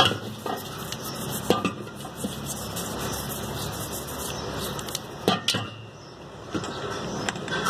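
Metal clanks and knocks as a car A/C compressor is handled and turned over inside a metal basin: a few scattered, sharp knocks over a steady background hiss.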